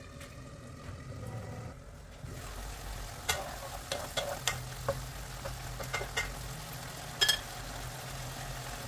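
Wooden spatula stirring chicken pieces in sauce in a frying pan, clicking and scraping against the pan several times, the loudest knock about seven seconds in, over the soft sizzle of the simmering food. A low steady hum sets in about two and a half seconds in.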